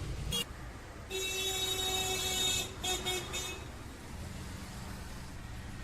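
A vehicle horn honks, one long buzzy honk of about a second and a half followed by a shorter one, over a steady low traffic rumble.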